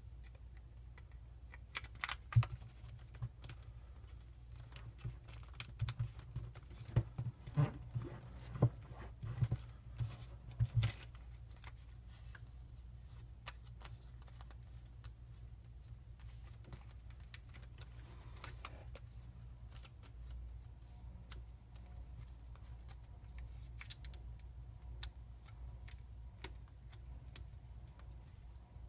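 Small sheet of origami paper being folded and creased by hand: crisp crinkles and snaps, loudest and most frequent in the first ten seconds or so, then softer rustling.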